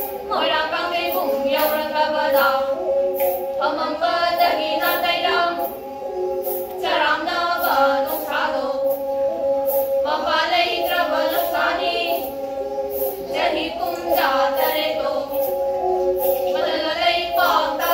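Several female voices singing a Meitei folk song in unison, over bowed pena, the Manipuri single-string fiddle with a coconut-shell body, which holds a steady drone under the voices. Bells on the pena bows jingle in a steady beat, about two to three a second.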